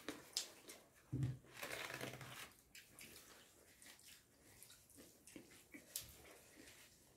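Eating by hand: fingers squishing and mixing rice with curry on steel plates, with soft chewing and small clicks of fingers against the metal. A brief low sound comes about a second in.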